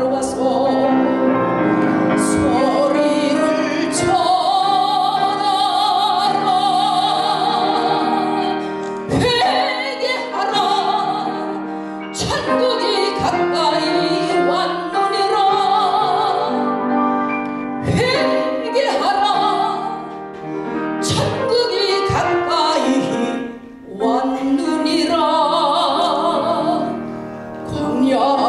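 A woman singing a Korean gospel song into a microphone, with vibrato on long held notes, accompanied by piano.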